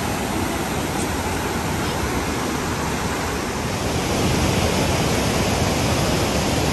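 Fast mountain river rushing over boulders: a steady, loud white-water rush that grows a little louder about four seconds in.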